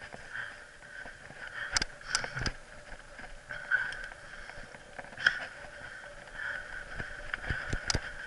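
Mountain bike riding fast down a dirt singletrack, heard from a camera mounted on the bike or rider: a steady rush of wind and tyre noise with sharp knocks and rattles as the bike hits bumps, the loudest knock about five seconds in.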